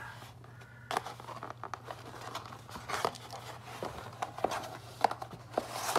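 Cardboard packaging being handled and opened: scattered clicks, scrapes and rustles as an inner box tray and its flaps are moved, the sharpest click about a second in, over a faint steady low hum.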